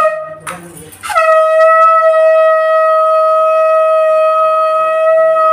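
Conch shell (shankh) blown: a short blast near the start and another about half a second in, then one long, loud, steady note from about a second in, held for roughly five seconds.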